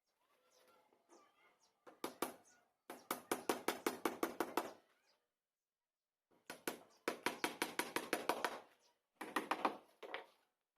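Hammer blows on wood in several quick runs of rapid, evenly spaced strikes, about six a second.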